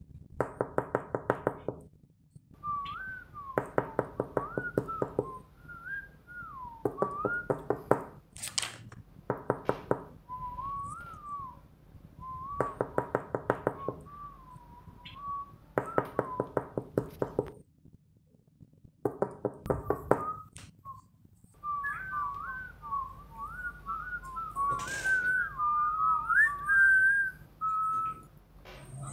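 A person whistling a wandering, unsteady tune, alternating with short bursts of rapid tapping or knocking. Near the end the whistling runs on without the taps.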